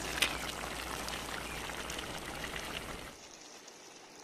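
Chicken curry bubbling and sizzling in a pan: a crackling hiss full of small pops, with a steady low hum beneath. It stops abruptly about three seconds in.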